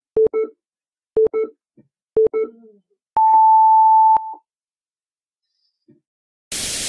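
Countdown-leader beeps: three short, low beeps a second apart, then one longer, higher beep. Near the end comes a short burst of hiss.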